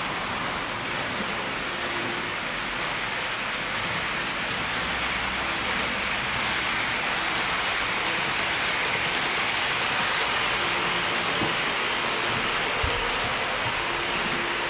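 HO-scale model train of KiHa 58-series diesel railcars with a KiNi 26 baggage car running along the layout track: a steady hiss of wheels rolling on rails that swells as the train passes, about two-thirds of the way in, and eases off near the end.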